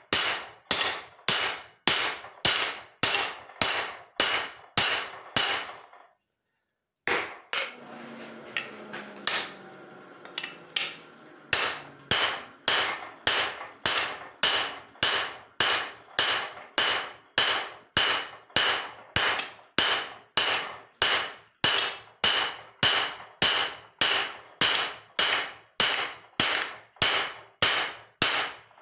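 Hand hammer striking leaf-spring steel on an anvil at a steady rhythm of about two blows a second, each blow ringing briefly. The blows stop for about five seconds a quarter of the way in, with only a fainter noisy sound, and then start again at the same pace.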